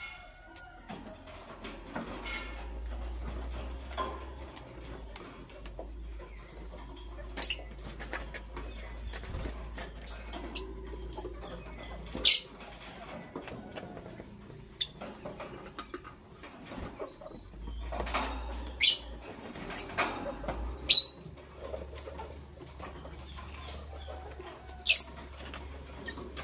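Lovebirds giving six or seven short, sharp, high chirps spaced a few seconds apart, with soft rustling and scuffling between them over a faint low hum.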